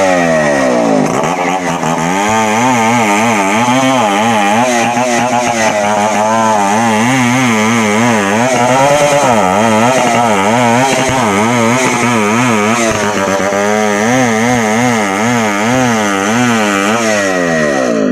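Chainsaw engine being revved: the throttle is worked up and down continuously, so the engine pitch rises and falls over and over without settling.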